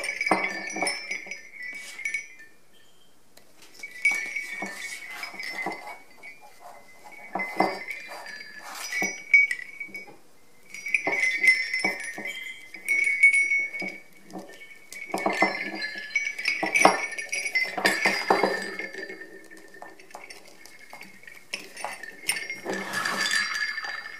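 Antique sleigh bells on a leather strap jingling and rattling in repeated short bursts as the strap is handled and shifted, with small clicks and knocks of handling.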